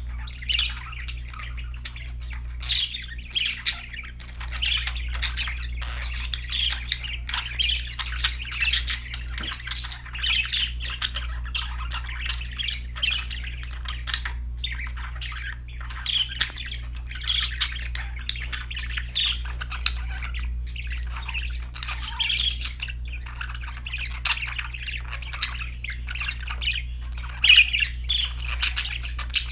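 Budgerigars chattering: a continuous stream of quick high chirps, squawks and warbles with no pause, over a steady low hum.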